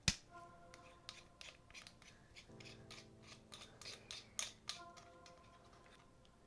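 A sharp click, then a run of short clicks and scrapes, a few a second, as the threaded extension tube of a Dazzne dual handle grip is twisted and unscrewed from the grip body by hand. Soft background music with held notes plays underneath.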